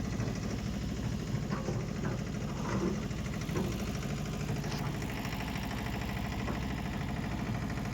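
Diesel engine idling steadily at low speed with a fast, even pulse, running while a fuel injector is being checked.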